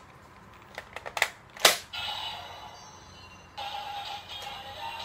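DX Seiken Swordriver toy belt being worked: a few sharp plastic clicks and a louder click about one and a half seconds in, then the belt's speaker plays electronic sound effects and music. A little past three and a half seconds in a new electronic sound starts as a Wonder Ride Book is slotted into the belt.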